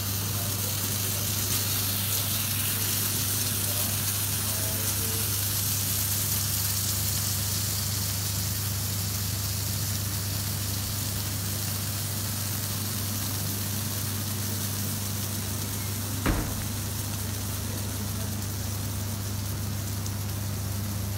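Melted cheese sauce sizzling on a hot sizzler plate, a steady hiss over a steady low hum. One sharp click about sixteen seconds in.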